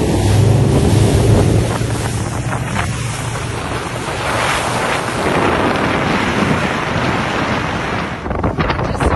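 Wind buffeting the microphone and water rushing past a foiling yacht under way. A low steady hum is heard for the first second and a half.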